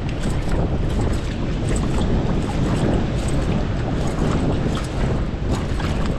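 Sea water washing and splashing over a rock ledge in a steady wash with scattered small splashes, with wind buffeting the microphone.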